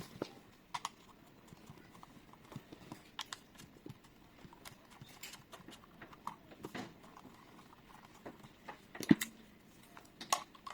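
Irregular clicks and knocks of smart-lock hardware being handled and set down, with one sharper knock about nine seconds in.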